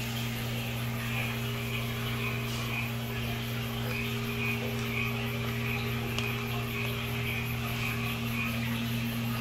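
A steady low machine hum, with a short higher-pitched call repeating irregularly about twice a second.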